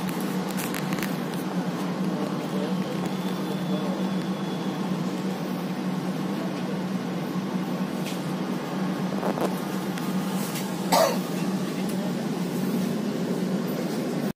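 Steady low hum of a passenger train carriage's air conditioning and running equipment, with a short loud sound near the end.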